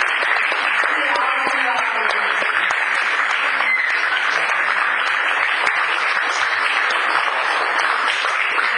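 Audience applauding, a dense, steady clapping from many hands that keeps an even level throughout.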